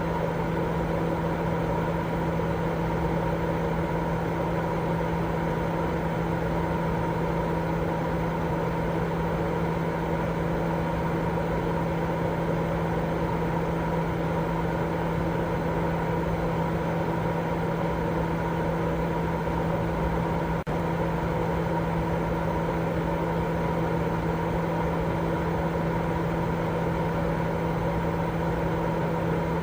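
Continuous steady white noise for baby sleep, heavier in the low end, with a constant hum running through it. It drops out briefly about two-thirds of the way through.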